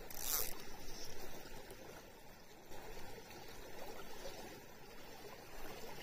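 Shallow river running over rocks, a steady watery rush, with a short high hiss just after the start.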